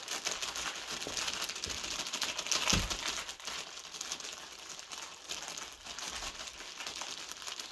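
Continuous crumpling and crinkling, made of many small crackles, with one louder crunch and a thump a little under three seconds in.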